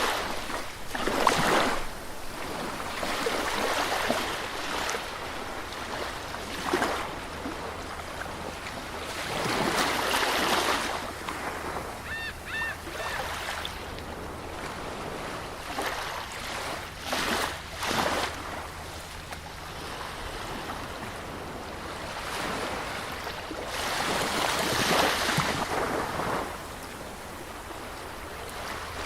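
Sea surf washing onto a beach, with waves swelling and breaking every few seconds. A brief, high two-note call sounds about twelve seconds in.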